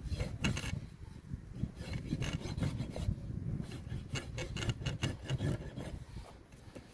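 Farrier's hoof rasp filing a horse's hoof in repeated rough scraping strokes, a few a second, dying away near the end.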